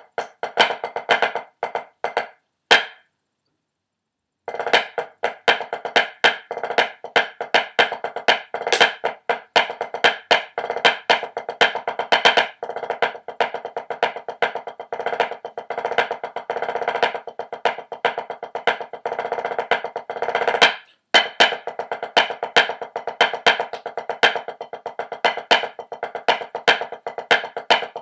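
Drumsticks playing a rudimental snare drum solo: fast, dense strokes with accents. The playing stops for about a second and a half near the start and breaks briefly about 21 seconds in.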